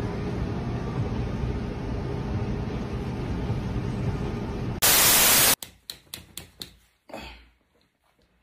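Steady rumbling noise, then a loud half-second burst of static-like hiss that cuts off abruptly, followed by a quick run of sharp clicks, about five a second.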